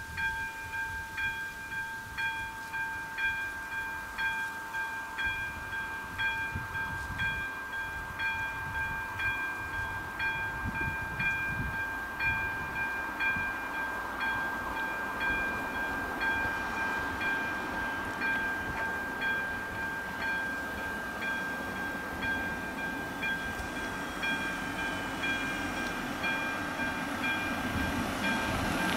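Railway level-crossing warning bell ringing: a steady tone struck over and over at an even pace, signalling that a train is approaching. A rumble of approaching traffic grows louder through the second half.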